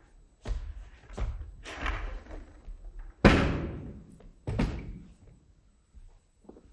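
A large old suitcase knocked about and set down on the stage floor: several thumps, the loudest a little over three seconds in, each trailing off briefly.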